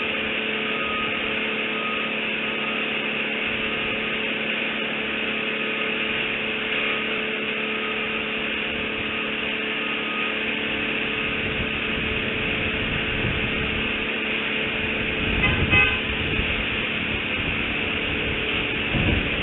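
Outdoor nest-cam microphone ambience: a steady hiss and electrical hum under a distant low rumble of road traffic. The rumble builds in the second half and peaks in a brief louder burst about 16 seconds in. A faint short peep repeats about once a second in the first half.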